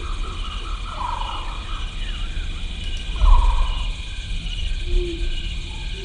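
Wildlife ambience: falling animal calls about every two seconds over a steady, rapidly pulsing insect-like chorus and a low rumble, which swells about three seconds in. Near the end a steady low tone comes in.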